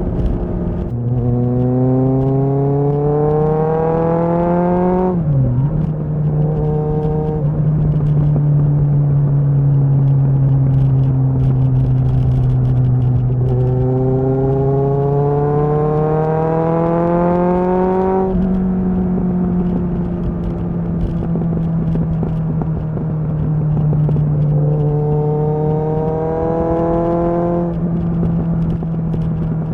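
Kawasaki ZXR's inline-four engine pulling hard under acceleration three times, its pitch climbing steadily each time and dropping sharply as the throttle is closed or a gear is shifted. Between the pulls it holds a steady, lower cruising note.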